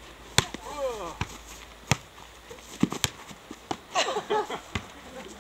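A ball being hit up by hand, with about six sharp slaps spread a second or so apart, and brief voices calling out between the hits.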